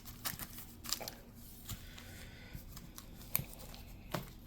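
Sports card pack wrappers being handled and worked open: crinkling and tearing of the paper, with scattered light clicks and rustles.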